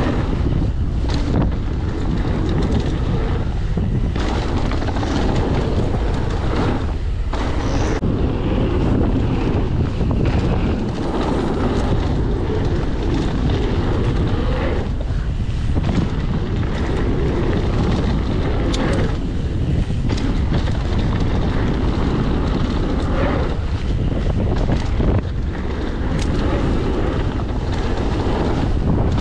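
Wind buffeting the camera's microphone over the rumble of a Mondraker Foxy R mountain bike's tyres on a packed-dirt jump trail, with several sharp knocks from the bike as it lands and rattles over the ground.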